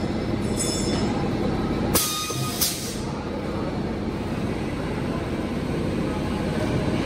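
Scaffolding prop welding machine at work: a steady crackle of MIG welding over machine noise, broken about two seconds in by two short, loud bursts of hiss about half a second apart.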